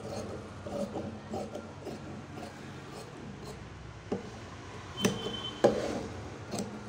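Scissors snipping through folded fabric on a table: a run of soft, quick cuts in the first couple of seconds, then a few sharper clicks later on, the loudest a little over five seconds in.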